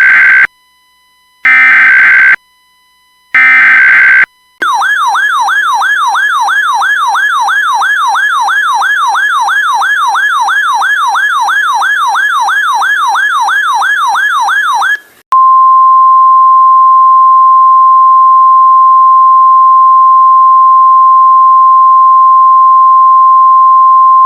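EAS alert on NOAA Weather Radio. Three short SAME header data bursts (the first already under way) are followed by a RadioShack 12-996 electronic siren warbling about three times a second for roughly ten seconds. Then comes the steady 1050 Hz Weather Radio alert tone, which signals that a warning message is about to be read.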